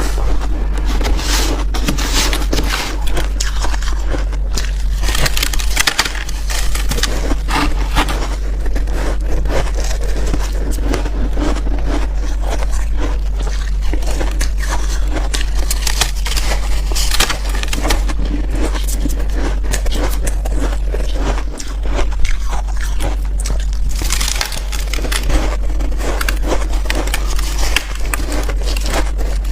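Soft, powdery freezer-frost ice being bitten and chewed: continuous crunching and crackling with many sharp crunches, over a steady low hum.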